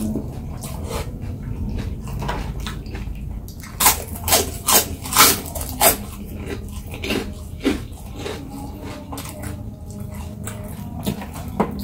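Close-up eating of crispy food: chewing, with a quick run of about six sharp crunches in the middle and a few more later.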